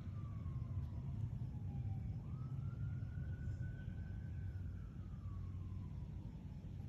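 An emergency-vehicle siren in a slow wail, its pitch swinging up and falling slowly over several seconds, jumping up sharply about two seconds in, over a steady low rumble that is louder than the siren.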